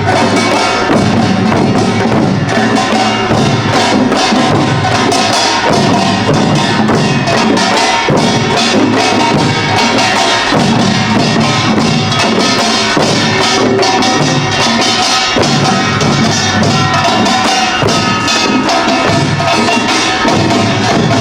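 Pungmul percussion ensemble playing Imsil Pilbong nongak: kkwaenggwari small gongs clattering over janggu and buk drums in a fast, dense, unbroken rhythm.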